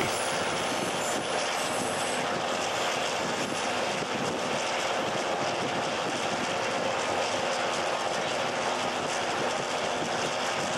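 Steady drone of an EMD MP15DC diesel-electric locomotive's 12-cylinder diesel engine and running gear, heard from inside the cab, even and unbroken.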